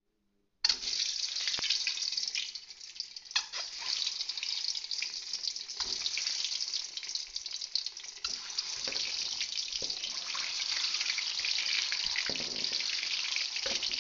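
Turmeric-and-salt-rubbed boiled eggs sizzling as they fry in hot oil in a kadai: a steady hiss with crackles, starting abruptly just under a second in. Several short knocks sound through it.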